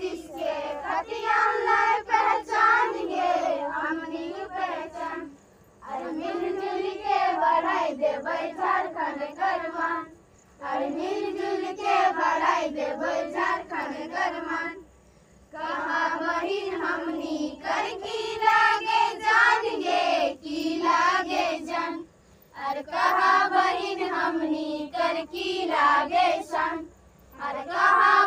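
Group of girls and young children singing a Karam folk song together, unaccompanied, in repeated phrases a few seconds long with brief pauses between them.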